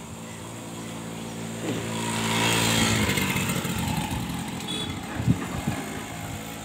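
A motorcycle engine running as it passes close by, growing louder to a peak between two and three seconds in and then fading. A short sharp knock sounds about five seconds in.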